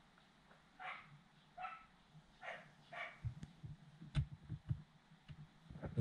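Four short, sharp yelp-like sounds in the first half, then a run of light knocks and clicks from plastic dashboard trim and screws being handled as the switch panel goes back in.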